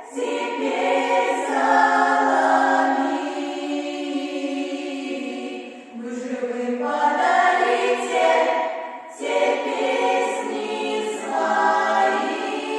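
A choir singing sustained, many-voiced phrases, with short breaks between phrases about 6 and 9 seconds in.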